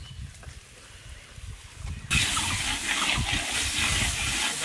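Spice paste of onion, garlic, chilli and turmeric frying in hot oil in a large iron wok: a quiet low rumble, then a steady crackling sizzle that starts suddenly about two seconds in as the paste is stirred.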